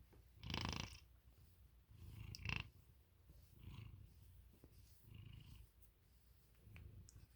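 American Ringtail cat purring softly, the low purr swelling and fading with each breath about every one and a half seconds, with a louder breathy rasp about half a second in.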